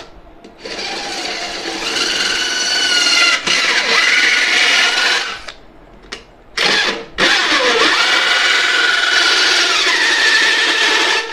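Makute cordless drill spinning a small circular saw blade as it cuts into a thin sheet-metal tin, a loud high screeching of blade on metal. It cuts for about five seconds, stops with one short burst in the pause, then cuts again for about four seconds.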